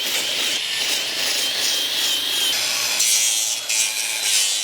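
Farrier's hoof rasp scraping across a horse's hoof wall in repeated strokes, cleaning off built-up crud and levelling the hoof.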